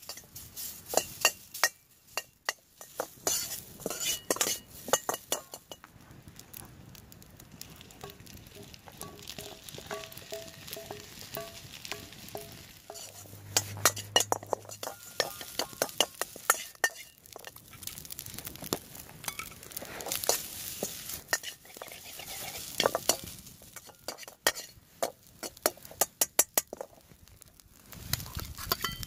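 A metal ladle scraping and clinking against a steel frying pan as rice and egg are stir-fried, with the food sizzling under it. The clinks come in irregular clusters as the rice is tossed and pressed.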